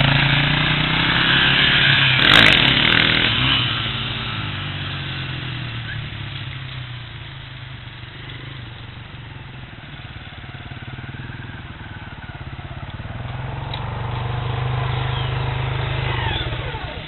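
Honda CRF250F dirt bike's single-cylinder four-stroke engine revving as the bike pulls away, with a sharp rev about two seconds in, then fading into the distance. It grows louder again after the middle as the bike runs back.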